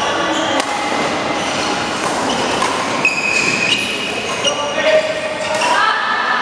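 Badminton rally: a shuttlecock struck by rackets several times, with brief high squeaks of court shoes on the court floor.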